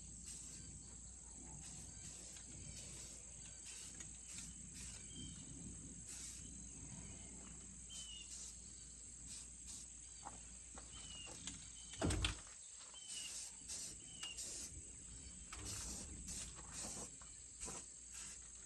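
Steady high-pitched insect drone, broken by many short hissing bursts and one sharp knock about twelve seconds in.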